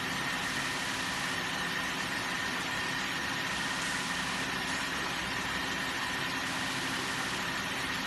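Common-rail test bench running a diesel high-pressure pump under test: a steady mechanical hum and hiss with a thin, steady high whine.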